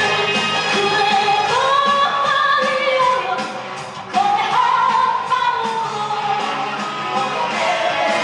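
A song with a sung melody held in long notes over a full instrumental backing; the music dips briefly a little before four seconds in, then comes back loud.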